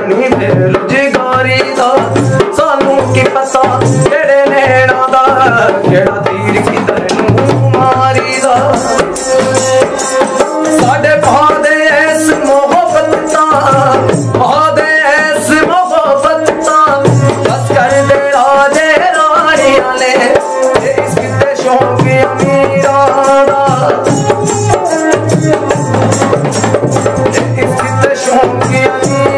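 A man singing a folk song with a wavering melody while playing a bowed folk fiddle whose bow is hung with small jingling bells, over a steady percussion beat.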